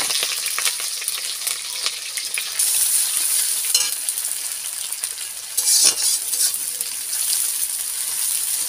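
Sliced onions frying in hot oil in a kadhai (wok): a steady hissing sizzle, with now and then the clicks and scrapes of a metal spatula stirring them.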